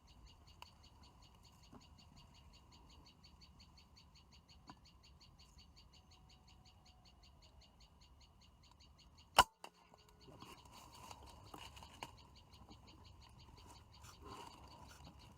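A single sharp crack of a PCP air rifle firing about nine seconds in, over a faint background of rhythmic pulsing animal calls at about five pulses a second.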